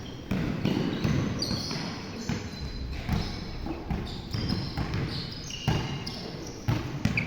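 Basketball game play: a ball bouncing on the court, with repeated sharp knocks and thumps.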